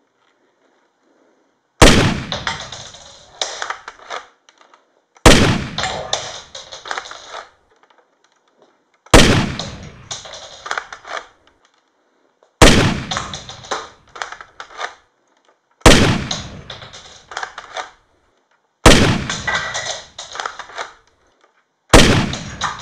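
Seven single shotgun blasts, one every three to four seconds. Each has a sharp crack and a ringing tail of about two seconds with a few rattling clicks in it. The blasts are all alike, a gunshot sound effect timed to each shot of a LEGO AA-12 automatic shotgun model.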